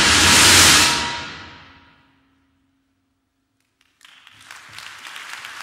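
Symphony orchestra's closing chord, percussion swelling to a loud peak under a second in, then dying away into silence. Audience applause breaks out about four seconds in.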